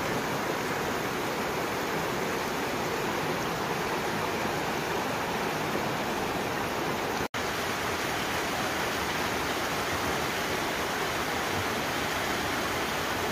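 Shallow mountain creek running over rocks and riffles: a steady rushing of water, with a momentary dropout about seven seconds in.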